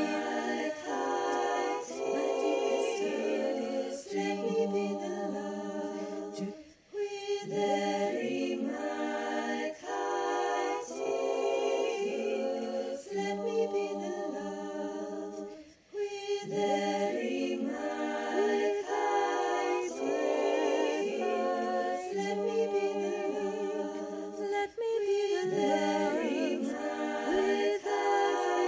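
A cappella singing in several overlapping harmony parts, with no instruments. The phrases last about nine seconds, with a short breath-pause between them.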